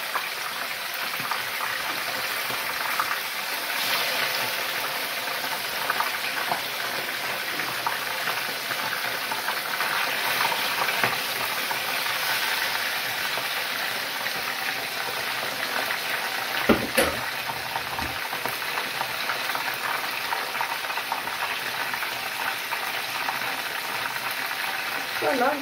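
Whole floured fish frying in hot oil in a pan: steady sizzling. A single sharp knock is heard about two-thirds of the way through.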